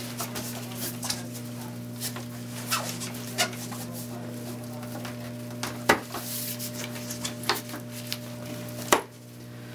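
Rustling of the Dream On Me bassinet's fabric as its metal frame pieces are handled and pushed into place, with scattered clicks and knocks and two sharper clacks about six and nine seconds in.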